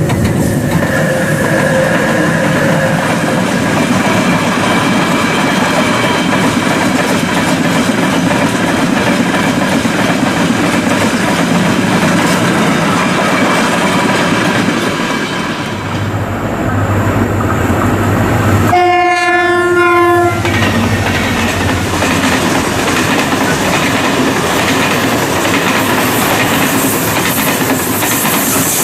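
Freight train running past, wheels clattering steadily over the rail joints. About two-thirds of the way in the locomotive sounds one horn blast lasting about a second and a half.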